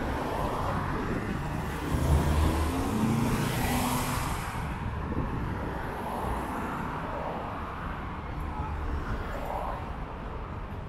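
City street traffic: a motor vehicle passes close by, loudest about two to four seconds in, then the sound settles back to a steady hum of traffic.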